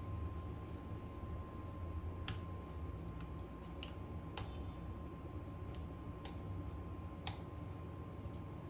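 Light, sharp clicks and taps of small hand tools on phone parts at a repair bench, a few seconds apart, over a steady low hum and a faint steady high tone.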